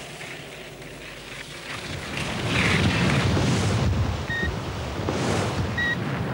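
Electronic speed-timing unit beeping twice, short high beeps about a second and a half apart, over a rush of wind-like noise that swells about two seconds in.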